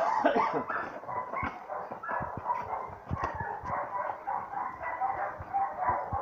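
Young German Shepherd whining and yipping in a quick string of short, high calls, with a louder falling yelp at the start. Light thumps and knocks run underneath.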